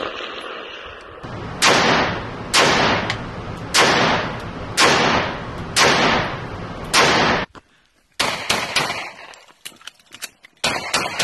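FN PS90-style bullpup carbine fired as six single shots, about one a second, each with a long echo of an indoor range. After a sudden break, several quicker, fainter shots follow near the end.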